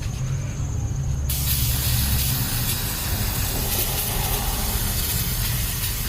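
Aerosol can of brake cleaner spraying in one long continuous hiss, starting about a second in.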